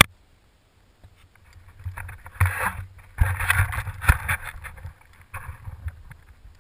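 Bike tyres crunching over packed snow, with irregular rattles and knocks from the bicycle on a rough trail, coming in uneven bursts. A sharp click right at the start.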